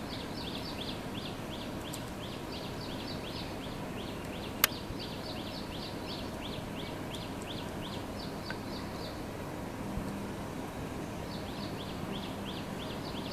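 Rapid high-pitched chirping, a steady run of short descending notes at about four or five a second, from a small unseen animal; it stops about nine seconds in and starts again near the end. A single sharp click about four and a half seconds in is the loudest sound, over a steady background hiss.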